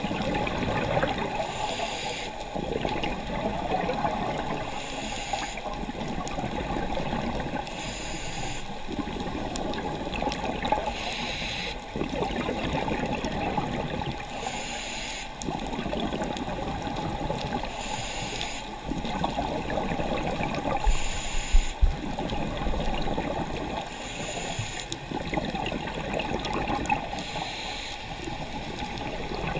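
Scuba diver breathing through a regulator, heard from underwater: a short high hiss of inhalation about every three seconds, each followed by the bubbling rush of exhaled air. A brief low thump stands out about two-thirds of the way through.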